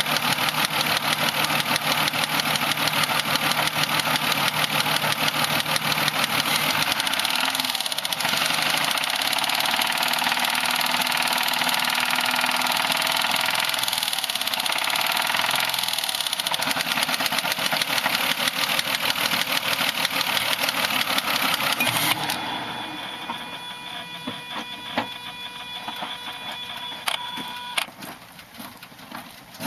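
2005 Mazda 6's 3.0 V6 Duratec engine, heard close up under the open hood, held at about 2,000–2,500 rpm with a loud ticking running through it. About 22 seconds in it drops back to a quieter idle, with a few sharp clicks near the end. The tick persists after a fresh oil change; its cause is unknown, and the owner wonders whether it is the valvetrain.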